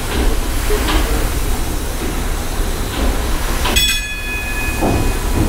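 Paddle steamer Waverley's triple-expansion steam engine running under way, a deep rumble with recurring beats of its strokes. About four seconds in, a single bell-like ring sounds and fades, in keeping with the engine-room telegraph dinging an order.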